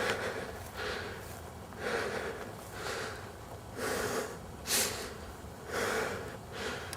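A person breathing heavily and audibly, out of breath, with a breath about once a second.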